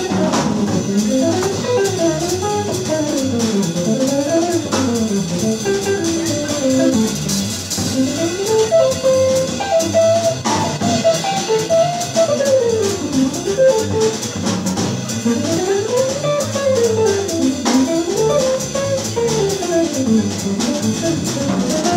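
Live small-group jazz: a hollow-body electric guitar plays a solo of fast single-note runs that climb and fall, over double bass and a drum kit with cymbals; the saxophone and trombone are silent.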